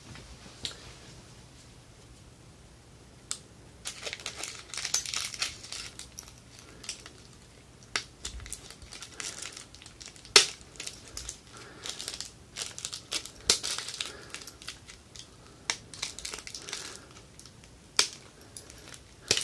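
Screwdriver prying at the plastic case of a DIY 18650 power bank box to release its snap tabs: plastic scraping and creaking with many sharp clicks, the loudest about ten seconds in, as the tabs give way. The first few seconds are only faint room tone.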